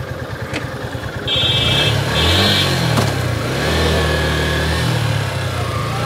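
Small-capacity motorcycle engines putter at idle, then from about a second in they rev up and down, louder.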